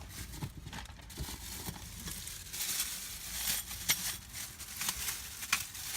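Rustling and crinkling handling noise, dotted with scattered light clicks and knocks.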